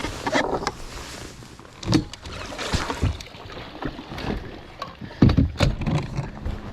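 Irregular knocks and rustling aboard a bass boat, with the loudest knocks about two seconds in and again about five seconds in.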